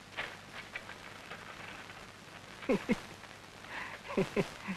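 Quiet background ambience: a soft hiss with a few light clicks at the start, and two pairs of short, quickly falling chirps, the first pair just past the middle and the second near the end.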